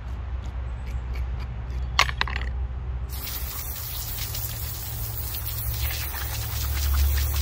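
A short clatter about two seconds in, then a garden hose spray nozzle is switched on about a second later and runs as a steady hiss of water, spraying over a whole white bass on a cutting board to rinse it.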